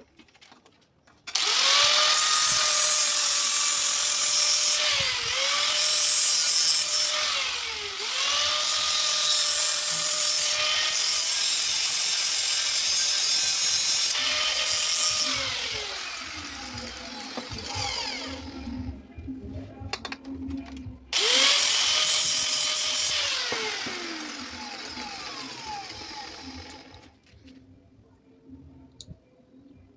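High-speed electric power tool working metal, run in two bursts. Its motor note sags briefly under load and winds down in pitch each time it is released. The second, shorter burst starts a few seconds after the first winds down.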